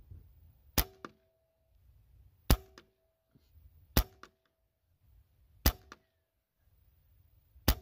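A .177 Benjamin Maximus PCP air rifle firing 24-grain slugs, five shots about one and a half to two seconds apart. Each is a sharp crack with a brief ring after it and a faint tick a moment later.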